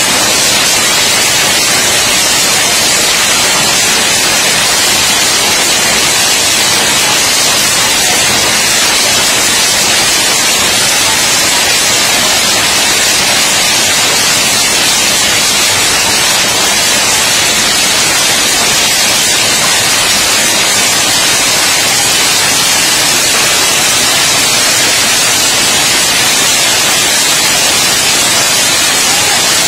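Heavy hail falling and pelting the ground, a dense, steady hiss with no let-up.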